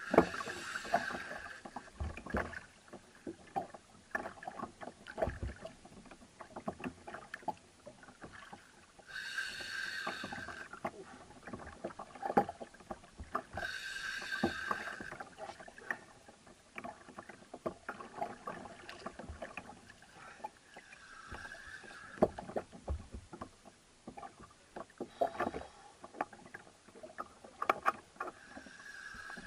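Spinning reel's drag buzzing in short runs as a hooked amberjack pulls line off, loudest twice, about ten and fourteen seconds in. In between are scattered knocks and clicks of the rod and reel being worked, with water on the kayak's hull.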